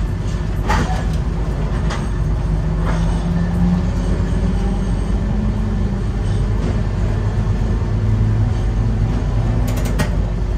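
Nagasaki Electric Tramway streetcar running along its track: a steady rumble of wheels on rail under a motor hum that rises in pitch a few seconds in and later settles lower. A few sharp clicks come through, a cluster of them near the end.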